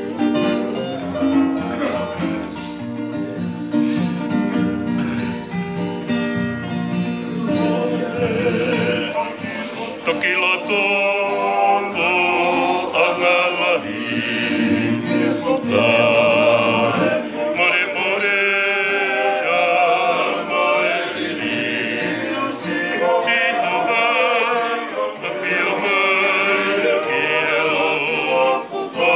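Several acoustic guitars and a ukulele strummed together while a group of men sing; the singing grows stronger about a third of the way in.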